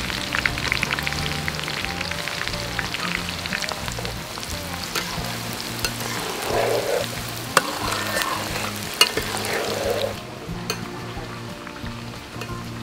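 Garlic frying in hot oil in a metal wok, sizzling and crackling. From about six seconds in a metal ladle stirs and scrapes the wok, with two sharp knocks, and the sizzle quietens after about ten seconds.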